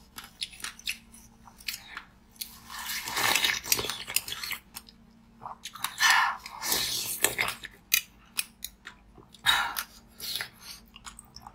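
Slushy ice and pomegranate seeds being bitten and crunched in several bouts, with sharp clicks scattered between them.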